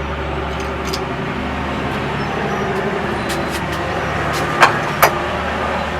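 A steady mechanical drone, like a motor running, with two sharp clicks in quick succession near the end.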